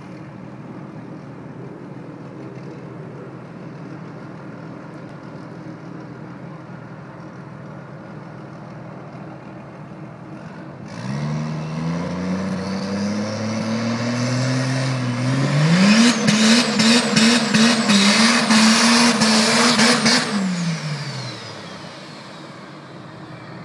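Diesel pickup truck doing a burnout. The engine idles, then about halfway through it revs up in two steps and is held high with a rapid even pulsing for about four seconds while the rear tyres spin and hiss. It then drops back to idle.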